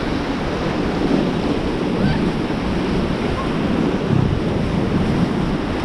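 Rushing whitewater churning steadily around an inflatable raft running river rapids, with wind buffeting the microphone.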